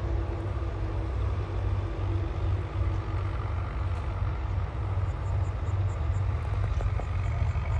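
Tractor engines running steadily with straw-making machinery, a low, continuous rumble.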